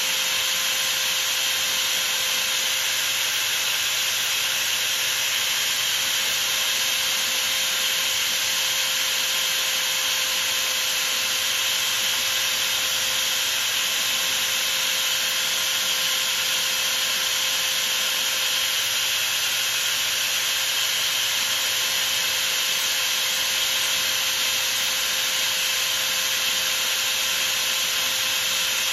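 Abrasive paper hissing steadily against a small brass-and-steel part spinning in a lathe, over the lathe's steady running tone.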